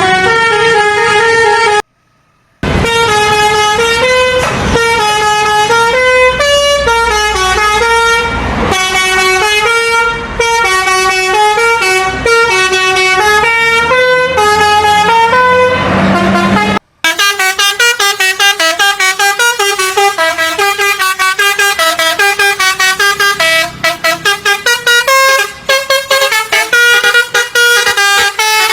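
An Indonesian bus's telolet basuri multi-tone musical horn plays a tune in loud, stepping notes, breaking off briefly twice. From about halfway on, the notes come as quick, short staccato blasts.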